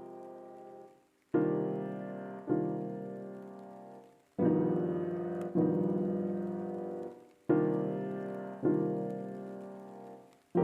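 Background music of slow piano chords, each struck and left to ring and fade, coming in pairs about a second apart every three seconds or so.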